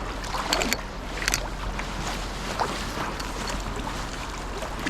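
Steady rush of flowing river water, with a few brief sharp sounds in the first second and a half.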